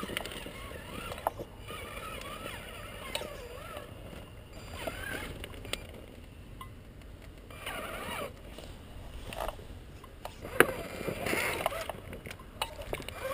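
Traxxas Summit RC crawler's electric motor and drivetrain whining, rising and falling in pitch as it is throttled in short spurts, with clicks and knocks from the tyres and chassis on the rocks and one sharp knock near the middle.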